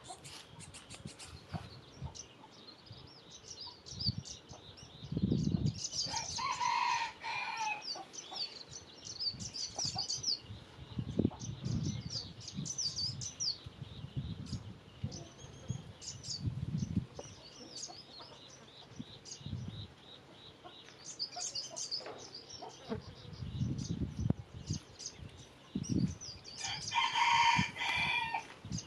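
A rooster crowing twice, once about six seconds in and again near the end, over frequent high chirping of small birds. Low thumps come and go throughout.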